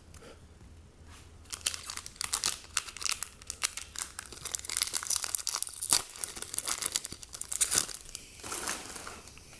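Wrapper of a trading-card pack being torn open and crinkled by hand, a run of quick crackles from about a second and a half in until near the end.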